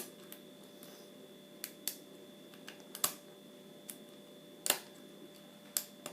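Lock picking in a modified FAB cylinder lock: small, sharp, irregular clicks of the pick and tension tool against the lock's pins and keyway, about eight in six seconds, over a faint steady hum.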